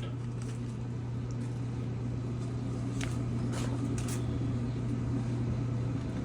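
Gas clothes dryer running on test, a steady motor and drum hum with a few faint clicks, stopping right at the end. The dryer tumbles but does not heat: its igniter is not glowing, so the burner never lights.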